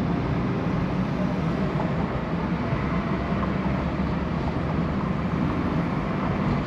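Steady engine and road noise heard from inside a moving car's cabin.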